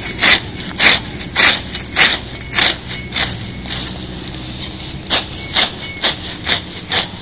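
Hand sickle slicing through low leafy grass and weeds at ground level in quick, regular swishing cuts, about two a second, with a short pause about four seconds in before a few more cuts.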